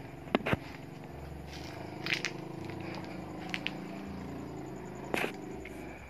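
Scattered sharp clicks and scrapes of a handheld phone being carried, with footsteps, over a steady low hum.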